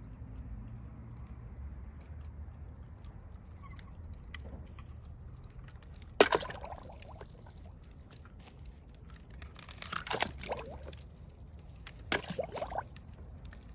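Die-cast toy cars splashing into water, three splashes about six, ten and twelve seconds in, the first the loudest, over a low steady rumble.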